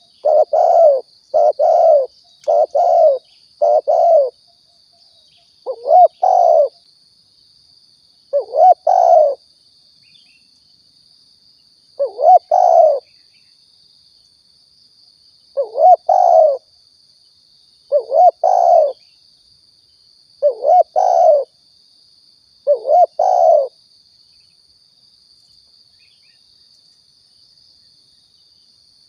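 Spotted dove (tekukur) cooing: short repeated coo phrases, a quick run of them for the first four seconds, then single phrases every two to four seconds, stopping about two-thirds of the way through. A faint steady high hiss runs underneath.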